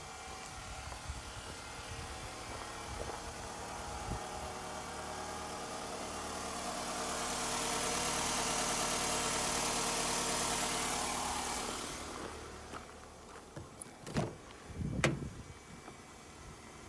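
Toyota Alphard ANH10's 2.4-litre four-cylinder engine idling steadily, loudest with a rushing hiss in the middle while heard over the open engine bay, then quieter. Two knocks sound near the end.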